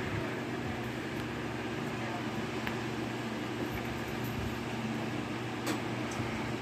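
Steady low machine hum, like a household fan or air-conditioning unit, with a single brief click near the end.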